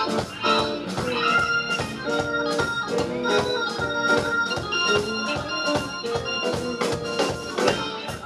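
Live electric blues band playing, with a Hammond-style organ holding and shifting chords out front over drums keeping a steady beat, electric guitar and bass.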